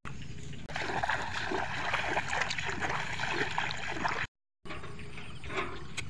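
Shallow floodwater splashing and sloshing around a person's legs as they wade through a flooded rice field, a quick run of small splashes. The sound breaks off for a moment about four seconds in.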